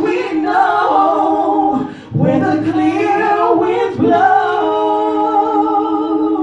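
A man and a woman singing a duet through microphones, drawing out long held notes with vibrato, with short breaths for phrasing about two seconds and four seconds in.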